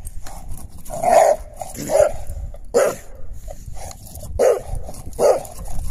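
English bulldog giving five short, loud barks, three in quick succession about a second apart, then a pause and two more.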